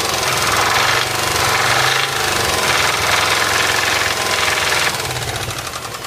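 Subaru EJ206 flat-four engine running with a loud, rapid knock; the noise eases about five seconds in. The owner takes the knock as a sign that the engine needs a rebuild.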